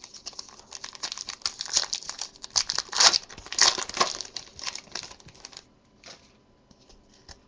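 Plastic card-pack wrapper and cards being handled, crinkling and rustling, for about five seconds before it goes quiet with a few faint ticks.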